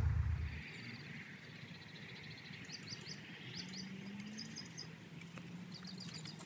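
Small birds chirping several times, with short high chirps, over quiet outdoor surroundings. A low rumble cuts off about half a second in, and a faint steady low hum starts a little past halfway.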